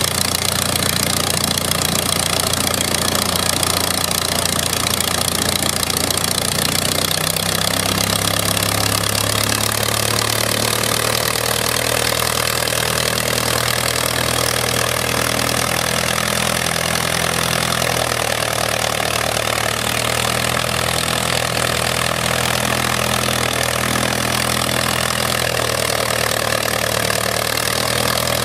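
Antique biplane's piston engine running steadily with its propeller turning, the engine note changing about seven seconds in.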